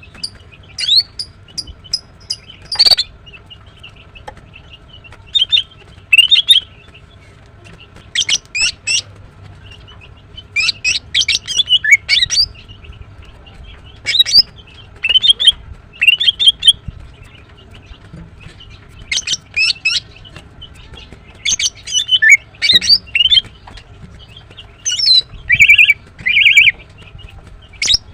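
Female greater green leafbird chirping: short bursts of sharp, high chirps and quick whistled notes, repeated every second or two with brief pauses between.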